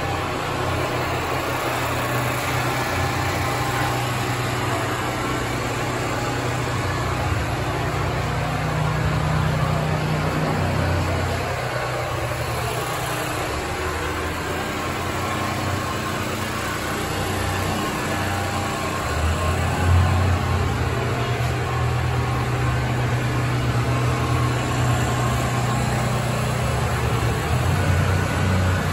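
An engine running steadily, a continuous low hum whose pitch shifts up and down now and then.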